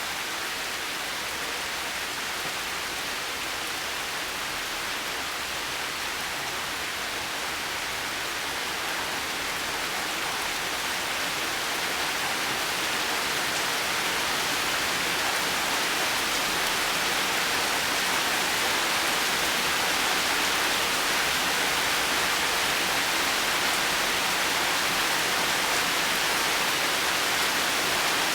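Heavy rain falling as a steady, even hiss, growing slightly louder about halfway through.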